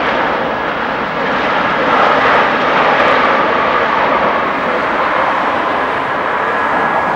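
Jet engines of a Boeing 777-300ER during landing rollout: a loud, steady rush of jet noise with a faint whine, swelling about two seconds in.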